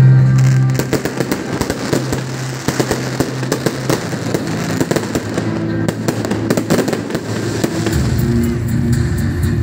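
Aerial fireworks display going off: a dense run of crackles and bangs, loudest right at the start. Music with long held notes plays underneath.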